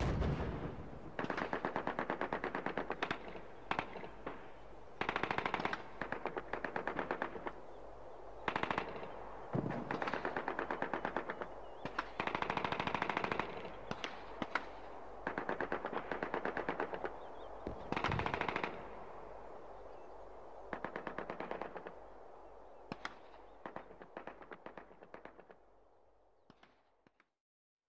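Gunfire: repeated bursts of machine-gun fire, each about a second long, with a few single shots between them. The bursts grow fainter and die away near the end.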